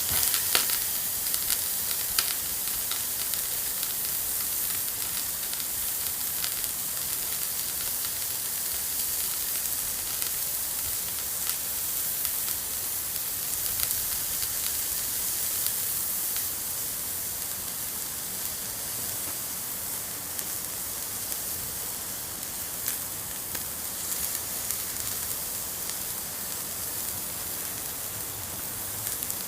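Steady rain: an even hiss with scattered clicks of drops.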